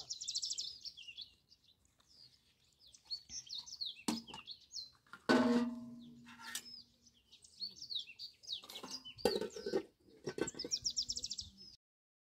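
Small birds chirping and trilling, with fast high trills at the start and again near the end. A sharp knock comes about four seconds in, and a louder clang about a second later leaves a short ringing tone, like metal dishware being set down.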